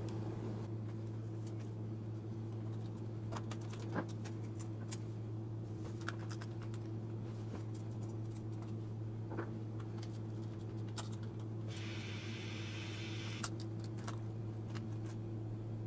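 Scattered light clicks and taps of fingers working the laptop's plastic screen lid and display cable, with a short scraping rustle about twelve seconds in. A steady low hum runs underneath.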